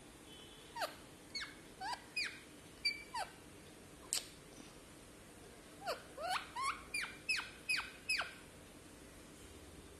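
Lutino Indian ringneck parakeet giving short squeaks that each fall sharply in pitch, in two quick runs of six or seven, with a single sharp click between them.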